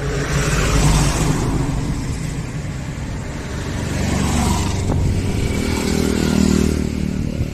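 Road vehicles passing close by, their engines and tyres swelling past twice: once about a second in and again around six seconds, where a motorcycle goes by.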